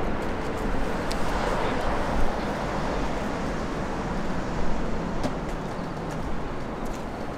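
Jet airliner engines rumbling steadily as a plane passes, with a faint steady whine running through it, easing off slightly near the end.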